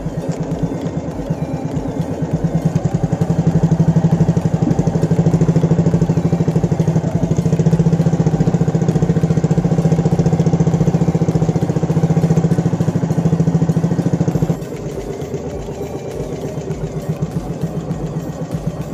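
Engine of a motorized outrigger fishing boat running steadily under way, heard from aboard, with a rapid even firing pulse. About three-quarters of the way through it abruptly drops in level and carries on more quietly.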